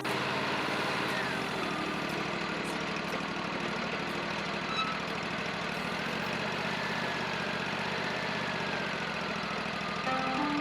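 Wood-Mizer LT40 portable sawmill running steadily, its engine holding an even note.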